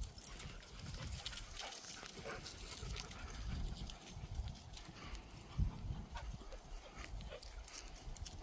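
Footsteps on a gravel-and-dirt path while walking with the dogs, with a low rumble on the handheld phone's microphone. There is a single thump a little past halfway.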